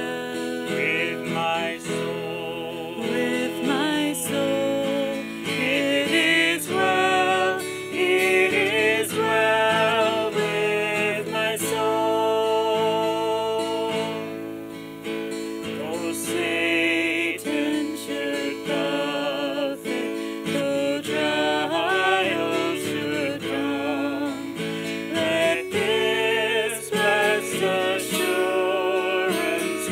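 A man and a woman singing together to a strummed acoustic guitar.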